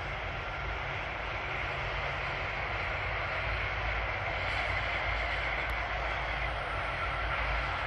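Airbus A330-200 jet engines running at taxi power as the airliner rolls past: a steady rush with a high, even whine, growing a little louder.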